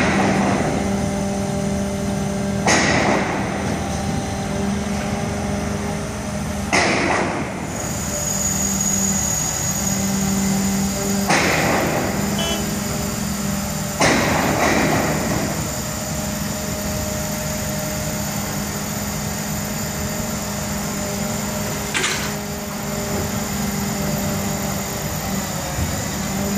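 Mobile crane's engine running steadily as it lifts and rotates a precast concrete panel, broken by about six sudden loud noisy bursts that each fade away over about a second.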